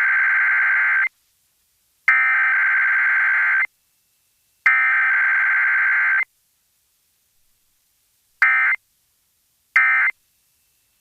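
Emergency Alert System SAME digital data bursts. Three long bursts of about a second and a half each, a second apart, carry the header that opens a required weekly test. Three short bursts near the end carry the end-of-message code.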